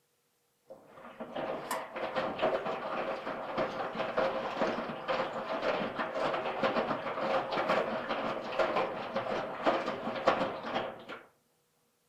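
Washing machine running: a dense rattling, sloshing noise full of small irregular knocks. It comes in just under a second in and stops shortly before the end.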